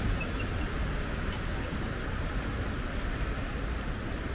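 Steady city street noise in the rain: a low rumble of passing traffic under an even hiss.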